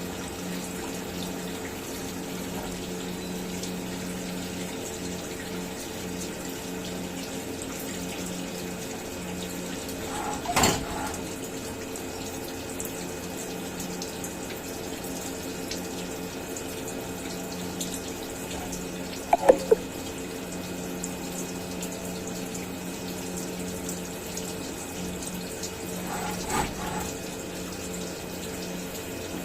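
CNC milling machine running: a steady hum with a few held tones and an even rushing hiss, broken by a brief knock about ten seconds in, a couple of sharp clicks a little past halfway, and a softer knock near the end.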